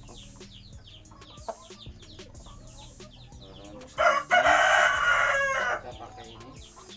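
A rooster crows once, loud, about four seconds in, lasting nearly two seconds. Behind it a steady patter of quick, high, falling chirps runs throughout.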